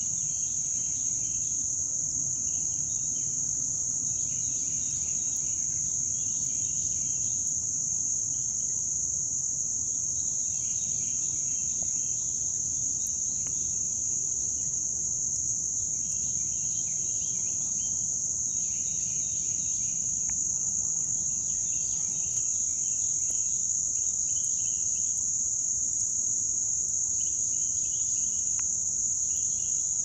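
Daytime insect chorus: a steady, unbroken high-pitched drone of crickets or cicadas, with fainter chirring calls lower in pitch coming and going every few seconds.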